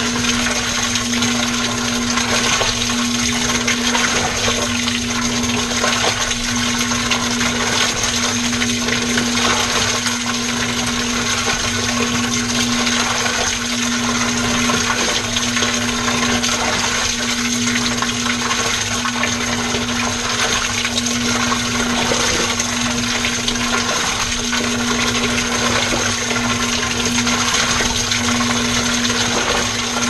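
Washing machine running with clothes and water in the drum, heard from inside the drum: a continuous watery churning over a steady motor hum and a faint steady high whine.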